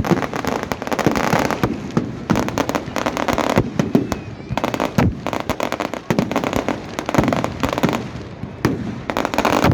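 Fireworks going off: a dense, nearly unbroken run of rapid bangs and crackles, easing briefly about six seconds in.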